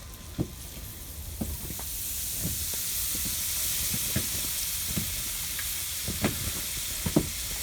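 Floured perch frying in hot oil in a pan, sizzling with scattered pops and crackles. The sizzle swells about two seconds in as lemon juice is squeezed over the fish.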